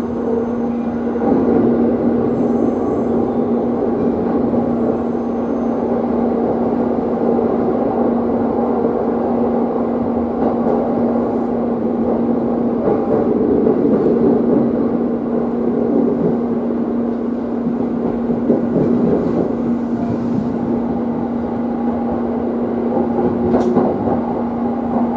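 B.B.BASE electric train running along the track, heard from the cab: a steady rumble of wheels on rail with a constant low hum, and a few faint knocks as it rolls over the track.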